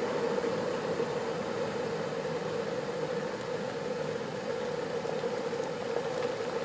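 Prestige Eco 3000 W cordless electric kettle boiling a minimum fill of water: a steady hiss of bubbling water with a hum underneath.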